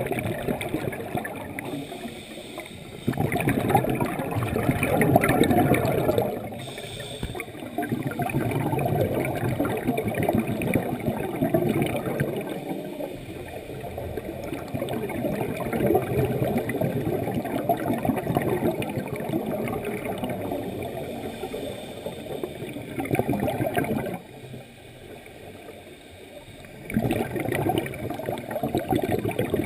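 Scuba regulator breathing heard underwater: exhaled bubbles gurgling and rumbling in surges of several seconds, with quieter pauses between breaths.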